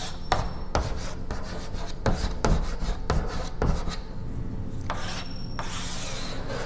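Chalk writing on a chalkboard: a run of short scraping strokes and taps as words are written, then longer scraping strokes near the end as a box is drawn around them.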